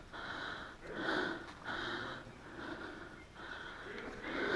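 A person breathing hard and fast close to the microphone, in and out in an even rhythm of about one breath every three quarters of a second.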